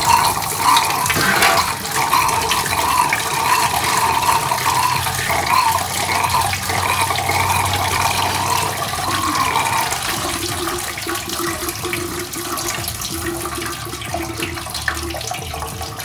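Engine coolant pouring out of a disconnected radiator hose on a Triumph Daytona 675R and splashing into a metal basin as the cooling system is drained. The stream runs steadily and eases off gradually toward the end.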